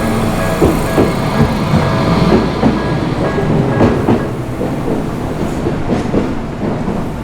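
Tokyu Setagaya Line train passing over the level crossing, its wheels clacking over the rail joints. The crossing's warning bell rings in a repeating tone and stops about three seconds in, while the wheel clatter carries on.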